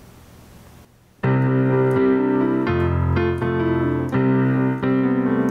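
Electronic keyboard with a piano voice playing sustained chords, starting about a second in after faint hiss. It is heard as a clean direct line feed from a USB audio mixer's output, with no room sound.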